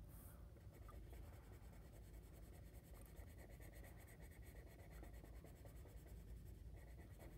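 Faint scratching of a felt-tip marker on paper as it colours in a small shape with many short, repeated strokes.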